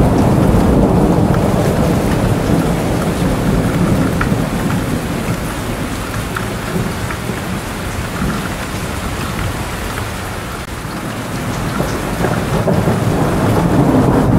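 Steady rain with a deep rolling rumble of thunder that eases off past the middle and builds again near the end.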